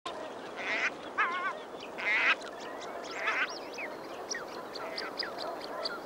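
Calls of common shelducks: three harsh calls and a wavering call in the first few seconds, then a run of short falling whistles.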